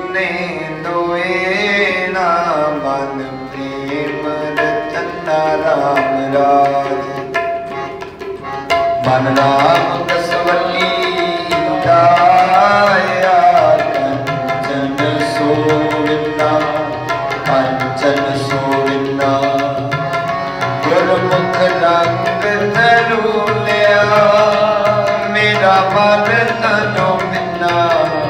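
Sikh shabad kirtan: harmonium melody with a voice singing and tabla keeping the rhythm. The tabla strokes get busier and the music louder from about nine seconds in.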